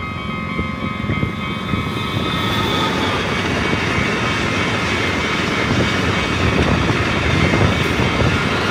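Passenger train passing close by a level crossing: a steady rumble of wheels on rails that grows slowly louder, with steady high tones above it.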